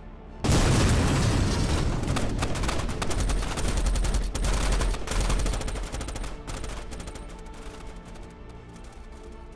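A sudden barrage of rapid gunfire, many shots overlapping, breaking out about half a second in. It stays loud for several seconds, then thins to scattered shots and fades, with music faintly underneath.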